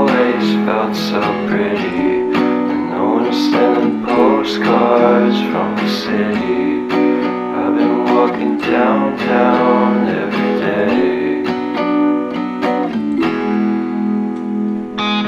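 Background music led by a strummed guitar, with steady repeated strokes.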